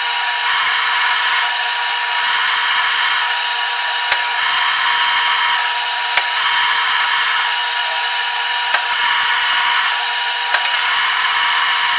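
Metal lathe spinning a length of rebar while a long 5/16-inch installer drill bit bores about ten inches deep into the steel: a loud, steady, high-pitched hiss and whine, with a few faint ticks.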